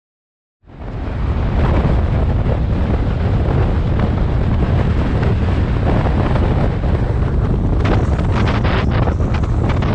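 Wind rushing over the microphone of a camera on a moving motorcycle, a steady heavy wind noise with the engine buried beneath it. It starts abruptly about half a second in and turns choppy and buffeting near the end.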